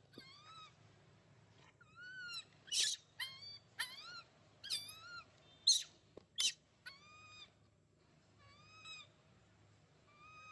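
Baby macaque crying: a string of short, high, arching coo calls, one every half second to a second, with a few sharper shrieks among them.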